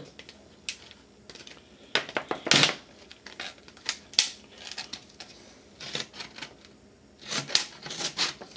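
Scissors cutting through the thin plastic of a 2-liter soda bottle: a string of irregular, sharp snips with short gaps between them.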